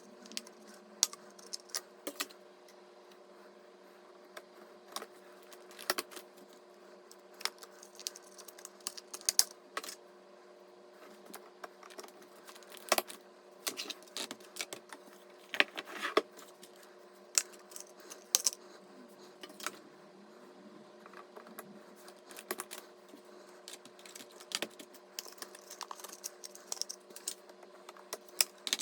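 Irregular sharp clicks and taps of small hard parts being handled and fitted during PC assembly, over a steady low hum.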